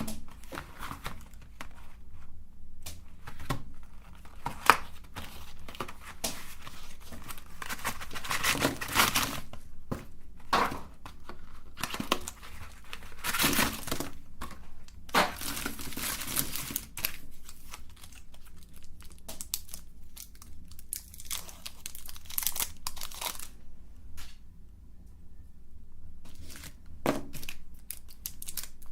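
Packaging of chocolate sticks crinkling and tearing in irregular bursts, with quieter handling between them.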